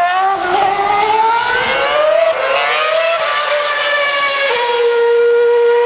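Formula One car's engine at high revs, its pitch climbing with sharp drops at upshifts about two and four and a half seconds in, then holding a steady high note as it passes and pulls away.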